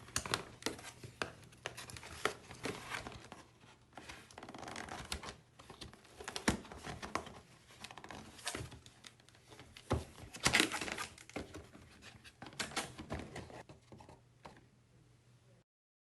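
Cardboard box panels being folded and worked by hand: irregular crinkles, scrapes and small clicks as flaps are creased down and tabs pushed into slots. The sound cuts off abruptly near the end.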